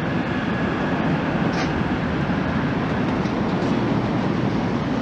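Boeing 767-300ER's twin GE CF6-80C2 turbofans at takeoff thrust during the climb-out: a loud, steady, low rumble with no change in level.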